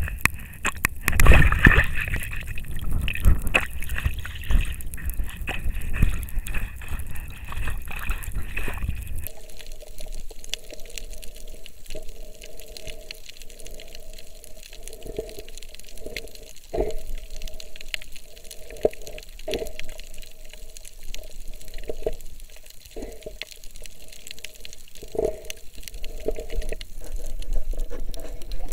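Water heard through a submerged camera while snorkeling. For about the first nine seconds it is louder and rougher, then it turns to a muffled wash with irregular short pulses every second or two.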